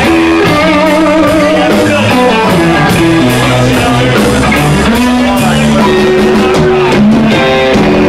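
Live blues band playing an instrumental passage: an electric guitar plays a lead line with bent and wavering notes over drums and a second electric guitar.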